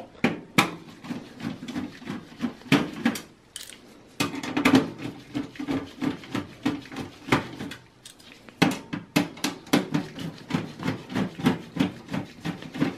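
Screwdriver backing screws out of a motherboard in a steel desktop PC case: runs of quick clicking ticks and light metallic clinks, with a few sharper knocks.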